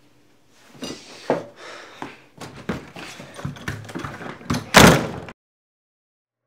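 A series of knocks and clatter, then a door slammed shut about five seconds in, the loudest sound.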